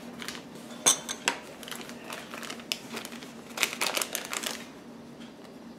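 Plastic packet crinkling and rustling on and off as it is handled, with scattered short crackles.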